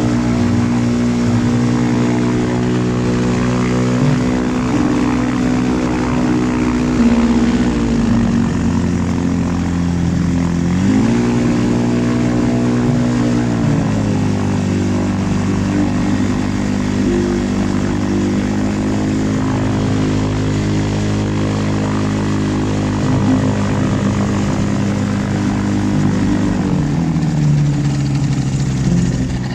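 Light aircraft's engine and propeller running as it taxis, the pitch dropping about seven seconds in, rising again around eleven seconds, dropping near fourteen seconds and rising once more near the end.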